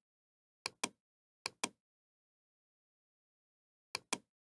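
Computer mouse clicks in three quick pairs, each pair two sharp clicks a fifth of a second apart.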